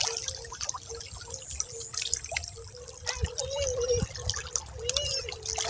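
Underwater ambience: many small crackling clicks and bubbling over a low rumble, with a faint steady hum that wavers in pitch a few times.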